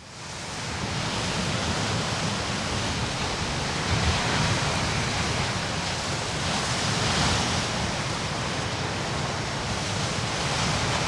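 Ocean surf breaking and washing ashore in a steady rush of noise that fades in at the start, with waves swelling about four and seven seconds in.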